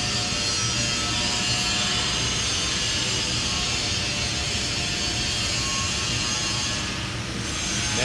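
Steady machinery noise in a large workshop: a broad hiss over a low hum, easing slightly near the end.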